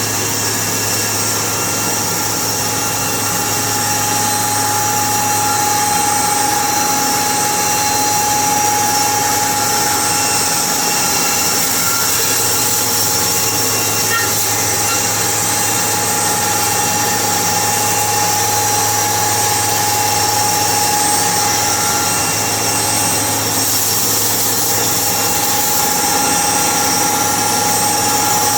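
Sawmill machinery running steadily: a constant mechanical drone with a steady whine and no breaks.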